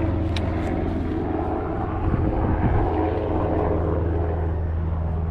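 Steady low drone of a distant engine, even in pitch throughout, with one sharp click about half a second in.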